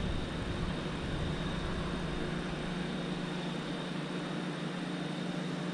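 A steady low mechanical hum over an even hiss, holding one pitch without change.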